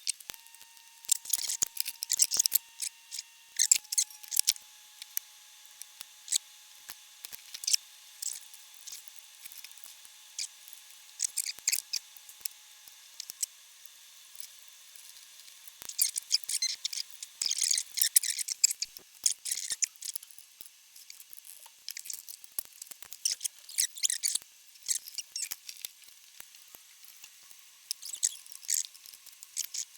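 Quick, irregular clicks, snips and scrapes of small hand tools working on an amplifier chassis during re-capping, heard fast-forward, with a faint steady tone underneath.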